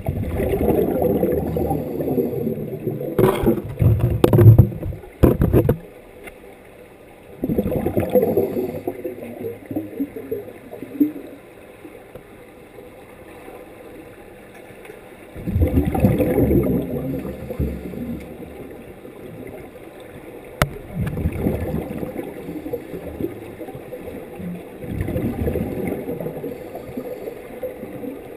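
Muffled underwater sound picked up through a camera housing: repeated swells of rushing, gurgling water, several seconds each, as swimmers kick past. A few sharp knocks come about three to five seconds in.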